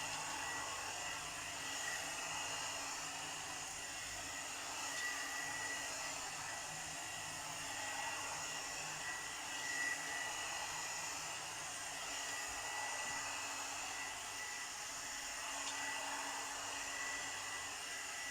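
Premio 3-in-1 blower brush (hot-air brush dryer) running steadily on its middle setting, an even blowing hiss with a thin steady whine from its motor. The middle setting is not very loud.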